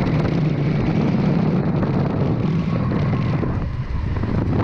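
Steady low wind rush buffeting the microphone while riding an electric skateboard, mixed with the rolling rumble of its pneumatic tires on pavement.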